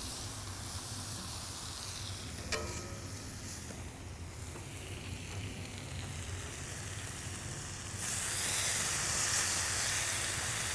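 Jerk-seasoned bacon sizzling on a hot steel griddle plate over an open flame. There is a single metallic clink about two and a half seconds in, and the sizzle grows louder for the last couple of seconds.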